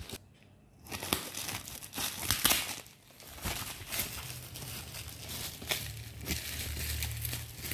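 Plastic parcel packaging, a poly mailer bag and bubble wrap, crinkling and rustling in irregular bursts with sharp crackles as it is handled and cut open with scissors. A low steady hum comes in about halfway through.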